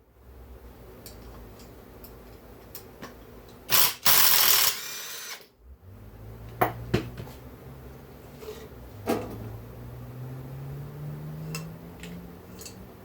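Power drill-driver run in a loud burst about a second long, backing out bolts during a chainsaw teardown. Small parts clicking follow, over a low hum that slowly rises in pitch.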